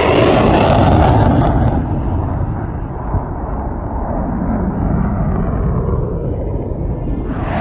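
Fighter jet roaring past, its high-pitched edge fading about two seconds in to a lower rumble, then a loud roar rising sharply near the end.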